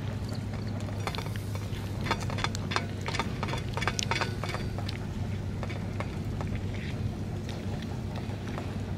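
A cat eating from a metal dish: quick wet chewing and smacking clicks, busiest in the middle, over a steady low rumble.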